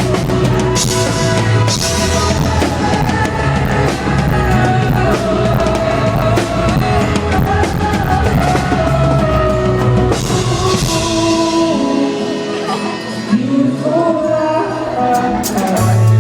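A live pop-rock band playing, with drum kit, guitar, bass and voices singing. About twelve seconds in, the bass and drums drop out, leaving lighter accompaniment and voice, until the full band comes back in near the end.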